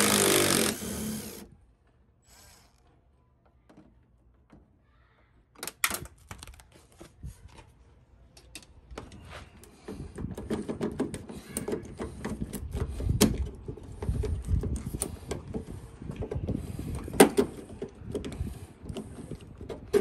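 DeWalt cordless driver running for about a second as it backs out the door handle's fasteners, then stopping. After a quiet gap, scattered clicks and knocks, then busier low rumbling handling noise with sharp clicks as the loosened plastic door handle is worked out of the steel door shell.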